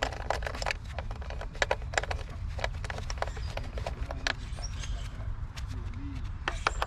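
Scattered sharp clicks of a socket ratchet and hand tools as a coil pack's hold-down bolt is run down, over a steady low hum.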